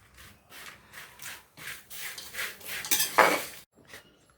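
A spoon stirring and scraping in a metal kadhai, tossing dry-roasted peanuts, dal, onion and curry leaves with spice powders, about two or three strokes a second. The strokes stop a little before the end.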